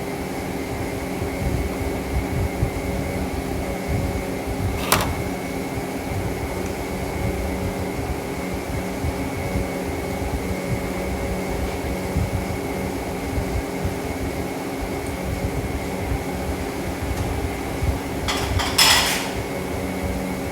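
Steady hum of a motor-driven household appliance, with several fixed tones. A single sharp click about five seconds in and a brief clatter near the end.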